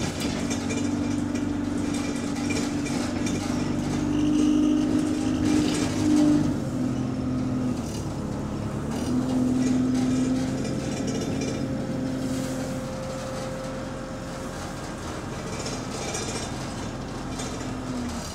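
Double-decker bus engine running under way, heard from inside the passenger saloon. Its pitch steps up and down several times, with light rattling from loose interior parts. The gearbox is running in limp mode without kickdown.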